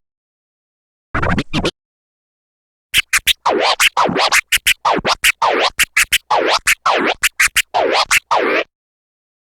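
DJ record scratches on a turntable: a short burst of a few quick scratches about a second in, then after a gap a longer run of rapid back-and-forth scratches lasting about six seconds, sweeping up and down in pitch, stopping abruptly.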